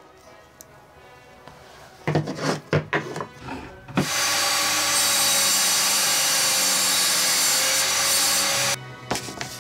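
A few wooden knocks as a block is handled on the saw sled. Then a table saw runs and cuts through wood, a loud steady noise of about five seconds that stops suddenly.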